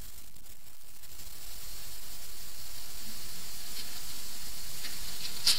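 Steady hiss of background noise in the recording, with no speech, slowly getting louder.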